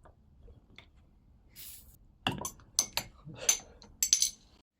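Leatherman Rebar multitool's bottle opener working a glass bottle's cap: a short hiss about a second and a half in, then a quick run of sharp metallic clinks.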